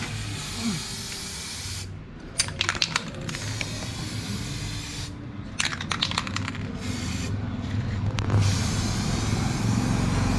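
Aerosol spray-paint can spraying: three long hissing sprays with short pauses, each pause filled with a run of quick clicks.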